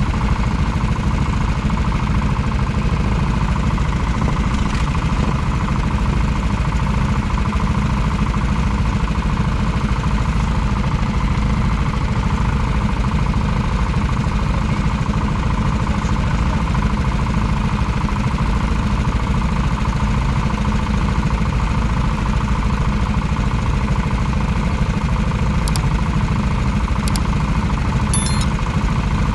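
Rental kart's four-stroke engine idling steadily, heard from the kart's onboard camera, with no revving.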